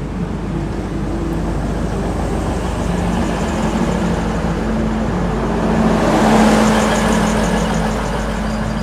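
NSW TrainLink diesel railcar pulling into the platform and passing close by: its diesel engine runs with a steady low hum, and the running noise swells to its loudest about six seconds in as the cars go past.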